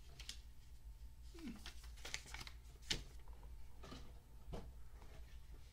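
Packaging being handled: a few light clicks and taps with soft rustling as a paper leaflet and a cardboard-and-plastic accessory box are turned over in the hands.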